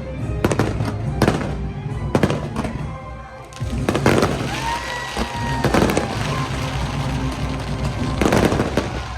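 Fireworks bursting and crackling at sea over a playing musical soundtrack, with a brief lull about three seconds in followed by dense crackling bursts.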